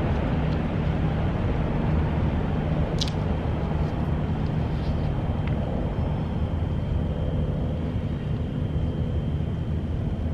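Steady low outdoor background rumble, like distant traffic, with a sharp click about three seconds in.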